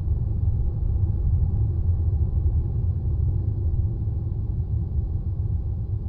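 Steady low rumble of wind buffeting the camera microphone, over the rush of ocean surf washing against the rock ledge.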